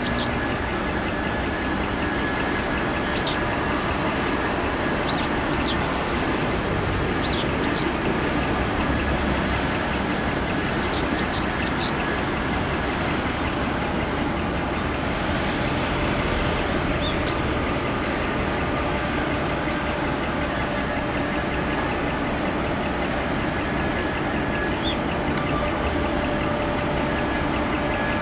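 Steady mechanical drone with a few constant hum tones, with scattered short high chirps over the first half.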